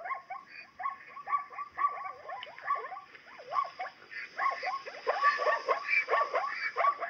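Plains zebras calling: a quick run of short, falling, yelping barks from several animals overlapping, louder and denser from about halfway, over a faint steady high hiss.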